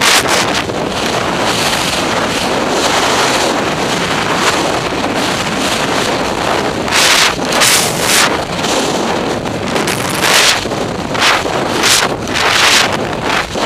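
Air rushing over the onboard camera microphone of a high-power rocket falling fast with its parachute deployed but not opened: loud steady wind buffeting, with stronger gusts swelling several times in the second half.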